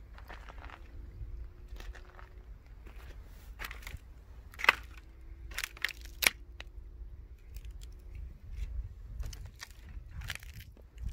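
Irregular crunching footsteps, with two sharp clicks about halfway through, a second and a half apart.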